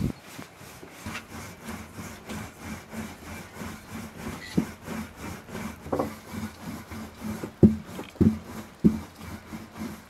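Rhythmic rubbing and scraping on wood, about three strokes a second, as dough is worked on a wooden board, with a few sharper knocks in the second half.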